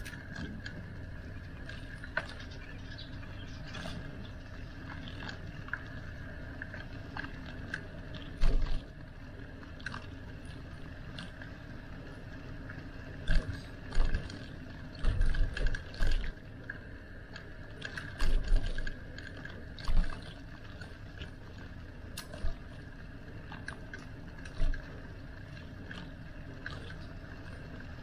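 Bicycle riding along: a steady mechanical hum with a faint steady tone, scattered clicks and rattles, and several loud, low thumps from about a third of the way in.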